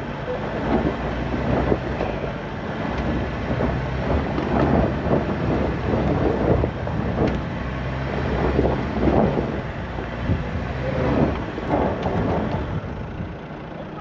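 SsangYong Rexton Sports pickup's diesel engine pulling steadily at low speed as it crawls up a steep, rocky dirt slope on oversized off-road tyres. Stones and gravel crunch and knock irregularly under the tyres.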